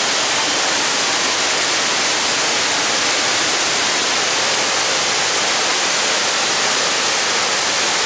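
Water pouring from the open spillway gates of a concrete dam and crashing into the pool below: a loud, steady rushing noise that never lets up.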